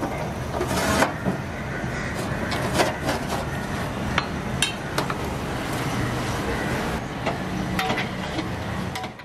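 Long metal ladle scraping and knocking against an aluminium cooking pot as rice is stirred through the stock, with sharp clinks every second or so over a steady low rumble.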